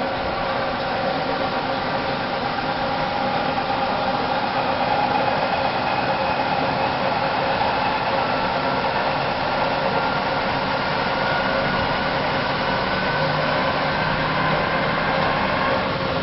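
CNC lathe running steadily, its spindle turning a Teflon cylinder in a large hydraulic chuck while a carbide insert takes a facing cut. A steady machine hum with several held whining tones that drift only slightly in pitch.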